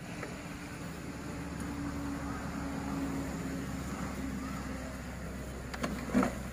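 A steady engine hum that fades after about five seconds, with a short louder sound with clicks near the end.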